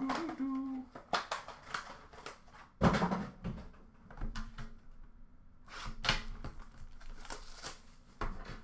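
Trading-card packaging being handled and torn open: irregular crinkling, rustling and tearing of wrappers and cardboard, with light clicks and knocks. The loudest rustle comes about three seconds in. A man hums briefly at the start.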